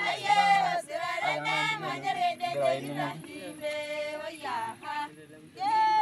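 Several voices singing together, higher voices with a lower voice holding notes beneath them.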